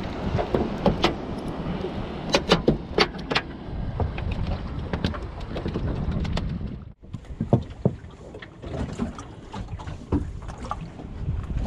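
Wind buffeting the microphone over a small boat on choppy water, with irregular sharp knocks and clatters as a just-caught fish is landed and handled in the boat. The sound cuts out for a moment about seven seconds in.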